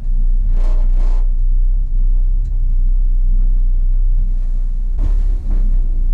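Gondola lift cabin riding along its cable, a steady deep rumble inside the cabin, with a brief louder rush about half a second in and again about five seconds in.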